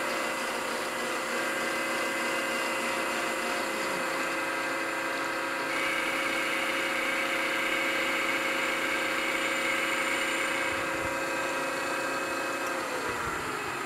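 Milling machine running steadily while an end mill takes a light cut, about fifteen thousandths, in a metal part. A higher cutting noise joins about six seconds in and eases off a few seconds later. The machine's tones drop in pitch near the end as it slows.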